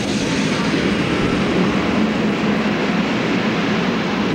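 Steady rushing noise of a steam locomotive standing in steam, with smoke rising from its chimney.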